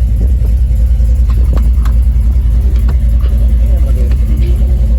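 LS-swapped 5.3-litre V8 in a 1989 box Chevy idling with a steady, pulsing low rumble, a few light clicks over it. The engine is not yet fully tuned.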